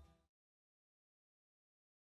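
Near silence: the last faint trace of a song's fade-out dies away just after the start, then complete digital silence.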